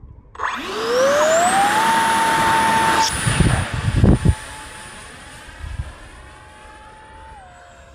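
Motor of a 3D-printed RC X-36 model jet spooling up to full throttle with a steeply rising whine about half a second in, then holding a steady high whine over a rushing noise through the launch. A few low thumps come around the middle, and the whine steps down in pitch near the end as the throttle is eased back.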